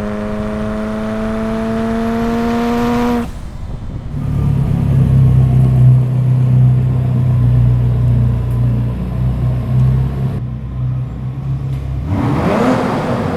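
Ferrari F40's twin-turbo V8. First a held, steady note climbs slowly in pitch for about three seconds and cuts off. From about four seconds a deep, uneven rumble runs at low revs, and a quick blip of the throttle rises near the end.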